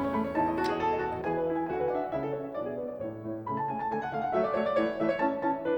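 Background music: a piano track playing a run of quick, changing notes.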